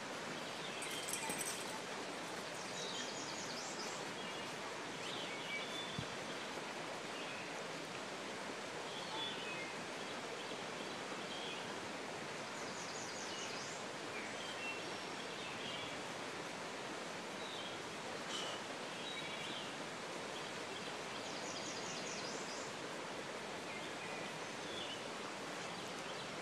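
Steady rush of flowing creek water, with birds chirping now and then, including a few short, fast trills.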